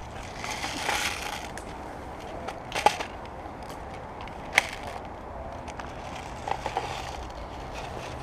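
Rustling and crunching with a few sharp cracks: two loud ones about three and four and a half seconds in, and smaller clicks near the end.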